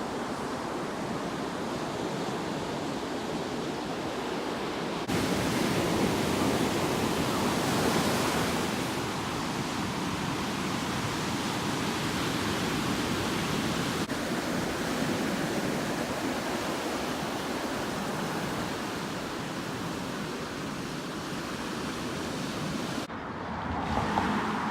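Ocean surf washing onto a beach, a steady rushing noise with a wave swelling about eight seconds in, and some wind on the microphone. The sound steps abruptly louder about five seconds in and drops sharply near the end.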